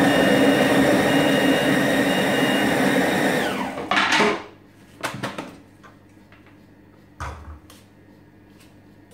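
ThermoCook TC Pro M 2.0 kitchen machine's blade running at speed 6, chopping a bowl of raw vegetables, with a steady motor whine that falls in pitch as it winds down about three and a half seconds in. A few short knocks and clicks follow.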